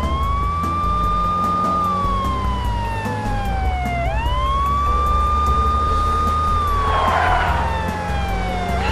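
Police car siren in slow wail: each cycle rises quickly, holds, then falls slowly, repeating about every four and a half seconds, with a short hissing burst about three quarters of the way through.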